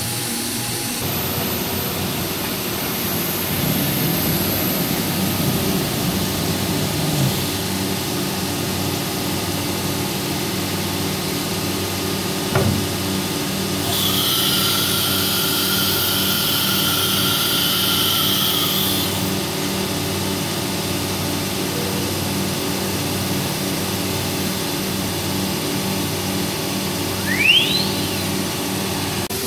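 Techno HDS CNC router running, a steady mechanical hum. A higher whine comes in for about five seconds midway, and a brief rising whine sounds near the end.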